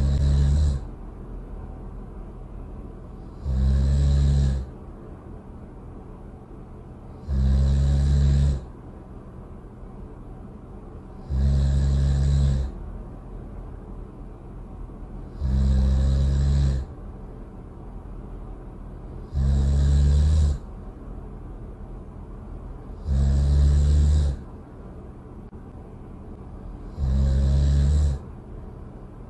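Loud snoring, one snore about every four seconds, each about a second long, with a low rumbling pitch and a breathy hiss. The snores repeat evenly over a steady low hum.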